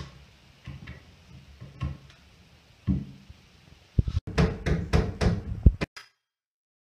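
Knocks and thumps on a wooden workbench frame: a few soft bumps at first, then a quick run of sharp, louder knocks about four seconds in, which cut off abruptly.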